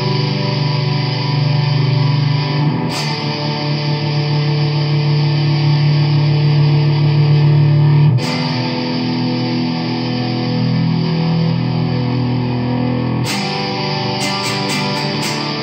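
Gold-top Les Paul-style electric guitar, played with distortion: long ringing chords that change about every five seconds, then quick choppy strums near the end.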